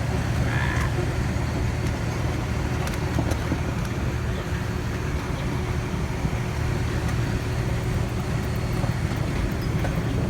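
Steady low rumble of a hay ride under way: the tractor engine running and the wagon rolling, with a faint steady hum above the rumble.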